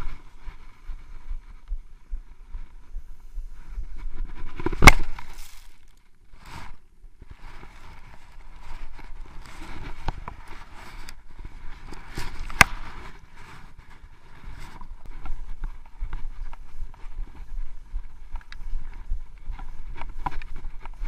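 Skis sliding and scraping through snow, with wind buffeting an action camera's microphone and a few sharp knocks; the loudest knock comes about five seconds in, another at about twelve and a half seconds.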